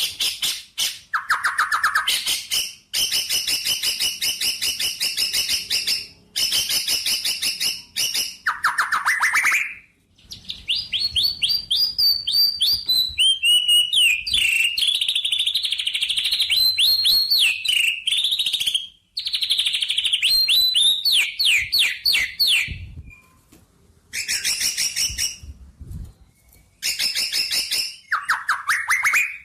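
Songbird singing close up: bursts of fast, sharp chirps repeated many times a second, broken by short pauses, with a longer stretch of varied warbling notes in the middle.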